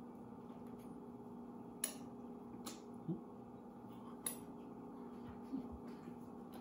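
Faint clicks of metal forks on a plate and teeth while eating pancakes, a few sharp ticks spread over several seconds, over a low steady hum.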